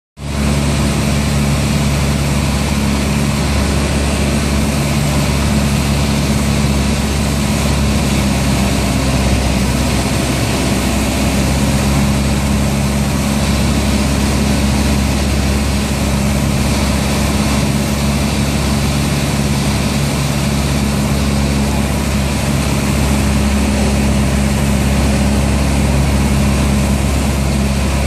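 Single-engine light aircraft's piston engine and propeller running steadily, heard from inside the cockpit, with a steady hiss over the low drone.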